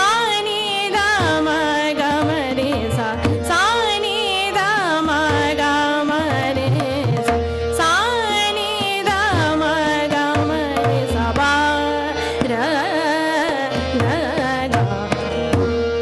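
Female Hindustani classical vocal in raga Rageshree, sung in gliding, wavering melodic lines over a steady tanpura and harmonium drone, with tabla strokes accompanying.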